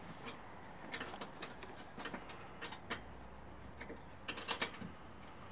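Irregular metallic clicks and ticks of hand tools at work on the mounting screws of a folding-arm awning on a camper van. A louder cluster of clicks comes about four and a half seconds in.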